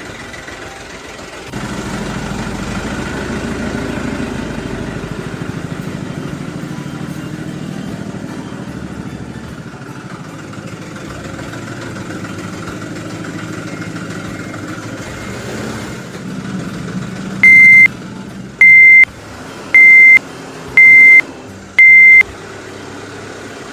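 Toy construction vehicle's engine sound running steadily. Near the end come five loud, evenly pitched beeps about a second apart, like a reversing alarm.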